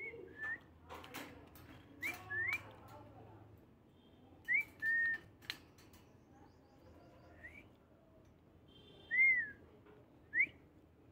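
A series of about nine short, clear whistles, most rising quickly in pitch and one arching up and down near the end, spread out with pauses between them. A few sharp clicks come in the first half.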